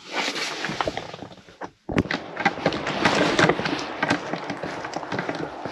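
Footsteps of a person walking briskly while carrying fishing gear, with the gear knocking and rustling irregularly over outdoor noise.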